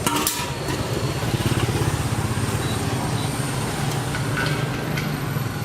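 A small motor-driven pump runs steadily with a fast low pulsing hum, and a brief hiss right at the start.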